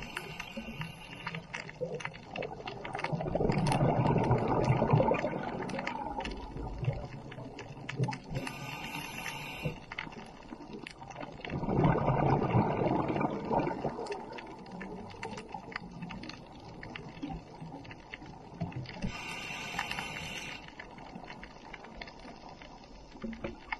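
Scuba diver breathing through a regulator underwater: exhaled bubbles rumble for a couple of seconds about 4 and 12 seconds in, and shorter hissing inhalations come about 9 and 20 seconds in, with small clicks and crackles throughout.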